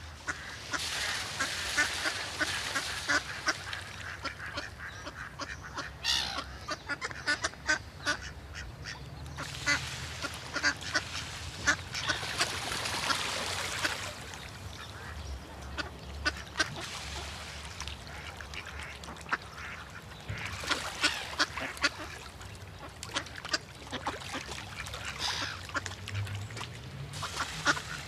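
Many birds calling together: a dense chatter of short, sharp calls that swells and thins in waves.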